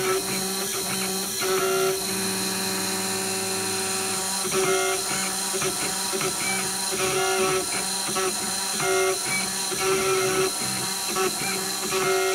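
IS400 CNC engraver cutting lettering into an aluminum cylinder with a single-flute conical end mill. The spindle runs steadily while the axis stepper motors whine in short tones that start, stop and change pitch every second or so as the cutter traces the letters.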